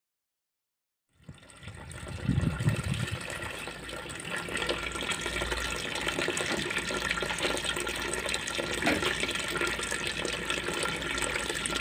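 Liquid pouring from a pipe into a plastic tub of leach solution, a steady splashing that froths the surface; it starts about a second in.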